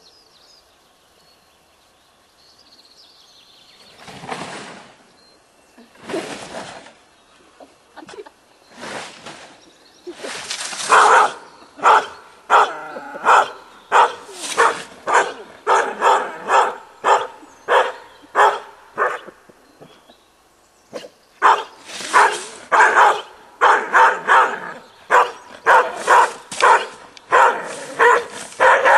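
Collie barking repeatedly: a few separate barks at first, then two long runs of about one to two barks a second with a short break between them.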